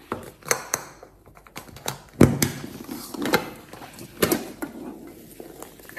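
Hands handling a large striped gift egg box: scattered clicks, taps and knocks on its surface as it is turned and worked at to open it, with one louder knock a little over two seconds in.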